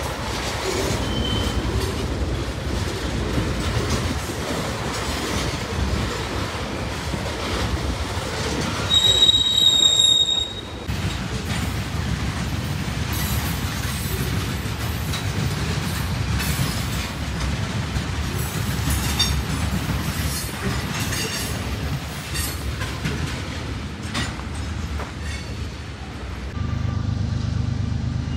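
Freight train of tank cars and covered hoppers rolling past: a steady rumble and clatter of wheels on rail joints. About a third of the way in, a high-pitched wheel squeal rings for about a second and a half. Near the end the sound changes to a steadier low rumble.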